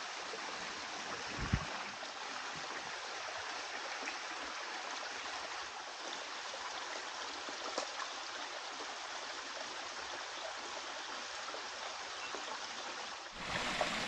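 Small rocky creek flowing at low water: a steady, even rush of water over stones. A single light knock about a second and a half in.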